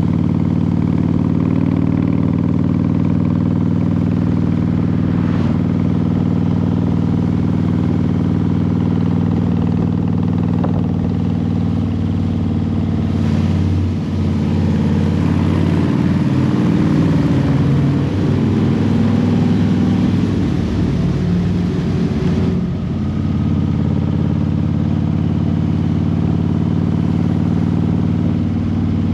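A vehicle engine running steadily, heard close up. For several seconds in the middle its note wavers and shifts and a rushing noise rises with it, as if the engine speed changes, then it settles back to the same steady note.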